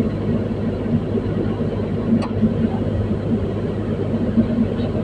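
Komatsu PC210-10 excavator's diesel engine running with a steady low hum.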